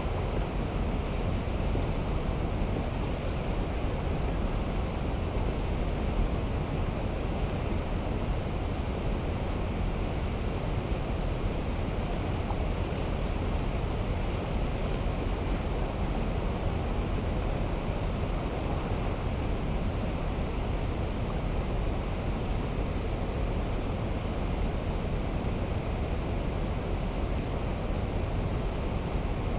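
Steady rushing noise with no distinct events, unchanged throughout.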